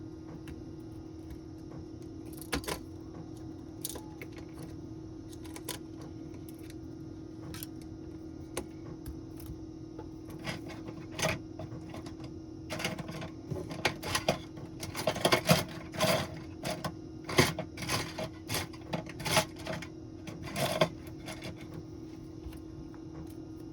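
Small clicks and taps of hand tools and phone parts being handled, scattered at first and then coming thick and fast for several seconds, over a steady low hum.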